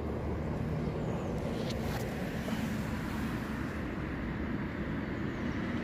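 Steady low rumble of a vehicle engine running, with a couple of faint crackles of soil being worked by fingers about two seconds in.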